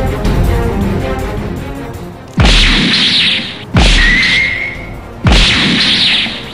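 Background music fades out. Then come three loud cinematic boom hits about a second and a half apart, each a deep thud with a hissing tail that dies away, and a thin ringing tone after the second.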